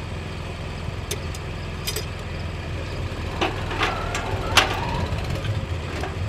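An engine running steadily in the background, under a few sharp metallic clanks with a brief ringing after them, loudest from about three and a half to four and a half seconds in, as an aluminum ladder is handled.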